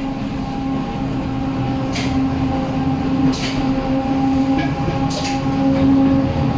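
Renfe 442-series electric train running: a steady electric hum over a low rumble, growing slightly louder, with a few short sharp clicks.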